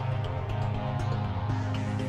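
Background music with sustained, steady notes.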